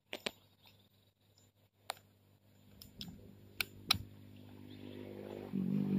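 Scattered sharp clicks and taps of small plastic camera parts and a screwdriver being handled as a point-and-shoot film camera is reassembled. A low steady hum builds near the end and becomes the loudest sound.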